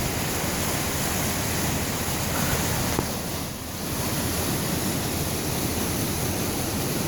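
Steady rushing of a flooded river, the water running high over a bridge, with a brief dip in level a little past halfway.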